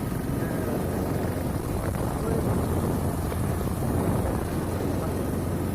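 Steady rush of a large waterfall in full monsoon flow, a dense low wash of falling water with no breaks.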